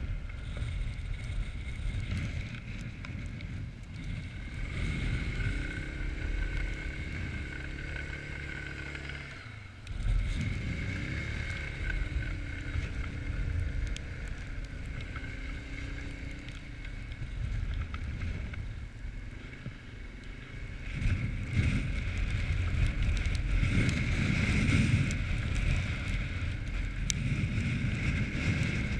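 Quad bike (ATV) engine running under way, its pitch rising and falling with the throttle, with a steady high whine alongside. The engine drops off briefly about ten seconds in, then picks up sharply, and it runs louder over the last third. Wind noise rumbles on the microphone.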